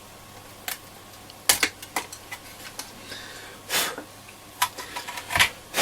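Handling noise from the case of a Roberts R707 transistor radio as its top panel is worked free: scattered sharp clicks and knocks, the loudest about a second and a half in, with a short rustle just before four seconds.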